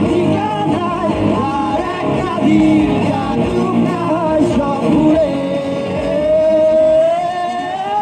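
A song: a voice singing over instrumental backing music. In the second half the voice holds one long note that rises slightly at the end.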